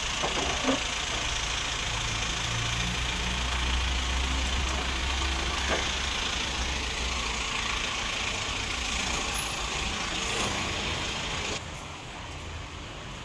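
Street traffic noise: a motor vehicle engine running as a steady low hum under a wash of outdoor noise. It drops quieter near the end.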